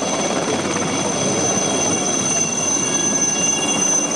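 SA 316B Alouette III helicopter hovering low: its Turbomeca Artouste turboshaft gives a steady high whine over the rotor's dense, even noise.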